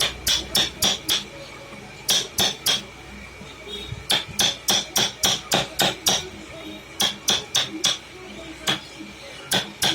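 Hand hammer tapping in quick runs of several sharp strikes, about three to four a second, with short pauses between runs; each strike has a slight metallic ring.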